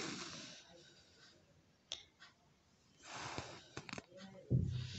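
Embroidery thread being drawn through cloth stretched in a hoop while sewing kantha stitch: two soft hisses, one fading out at the start and another about three seconds in, with a few light ticks between.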